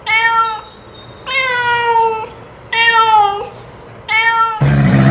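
Cat meowing, four pitched calls about a second and a half apart, each slightly falling at the end. Near the end a louder, harsh, low roar-like call cuts in.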